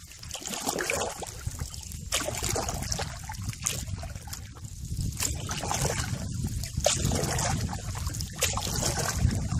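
Canoe paddle strokes through calm water, a splash and drip roughly every second and a half, over a steady low rumble.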